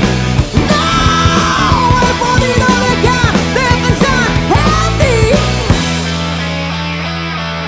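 Psychedelic rock band playing, with a lead line sliding up and down over drums and bass. About six seconds in the drums and bass stop, and a held chord rings on and slowly fades.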